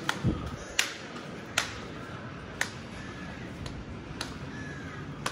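Ball tip of a mobility cane tapping on the concrete platform about once a second, sharp clicks at an uneven walking pace.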